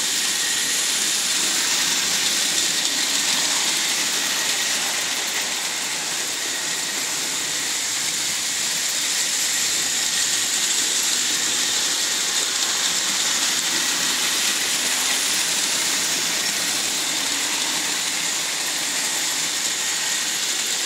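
Märklin model trains running on metal track: a steady whir from the locomotives' electric motors and wheels on the rails, with a constant high hiss.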